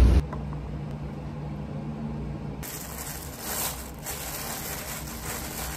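Low steady room hum, joined about two and a half seconds in by faint crinkling of a thin plastic bag being handled.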